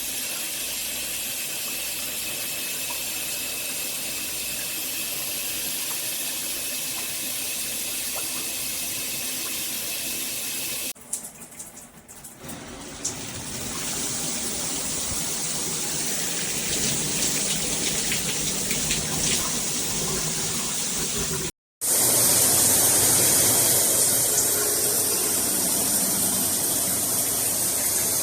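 Water spraying from a Veken dual rain-and-handheld shower head, a steady hiss of spray. It dips and sputters briefly about eleven seconds in, then builds back up. It breaks off for an instant about twenty-one seconds in and comes back louder and brighter.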